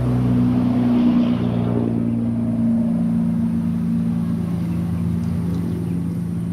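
An engine running steadily, its pitch shifting slightly up and down.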